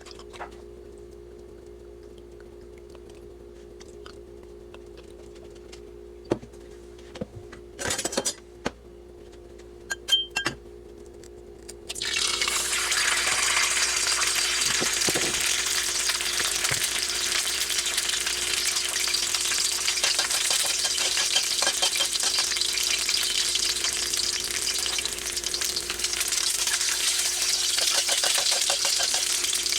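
A few clinks and knocks of utensils on cookware, then about twelve seconds in a loud sizzle starts suddenly as food goes into hot oil in a pan, and keeps frying steadily while it is stirred.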